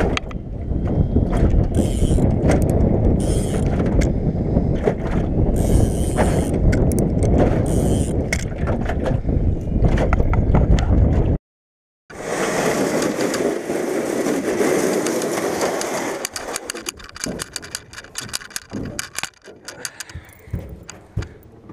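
Wind rumbling over the microphone while a spinning reel is cranked against a heavy fish, with fine clicking from the reel. About eleven seconds in it cuts off abruptly; after that comes a softer hiss that fades into scattered light knocks and clicks.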